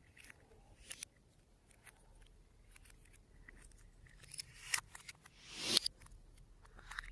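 Small hand-work sounds of makeup and slime being handled: scattered sharp clicks and taps, and a short rasping swell that builds and stops abruptly near six seconds in.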